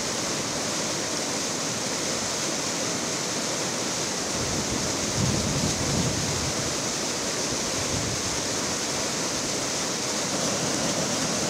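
Fast, muddy floodwater rushing and churning around a tree trunk: a steady rushing noise that swells slightly about halfway through.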